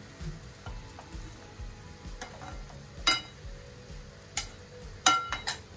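Stir-fried noodles being tossed with metal tongs in a steel kadhai over a gas flame, with a soft frying sizzle. Sharp, ringing clinks of metal on the pan come in the second half: one at about three seconds, one a little later, and three in quick succession near the end.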